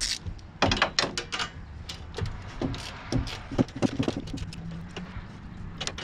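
Hand ratchet clicking in short irregular spells, with knocks of metal tools, as the A/C line fittings at the condenser are bolted down. A dense cluster of sharp clicks comes about a second in, then scattered clicks.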